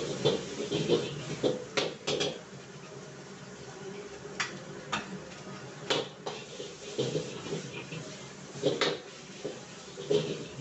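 Metal ladle and spatula knocking and scraping against a steel wok while stir-frying fried rice, in irregular clanks, some in quick pairs, over a steady hiss.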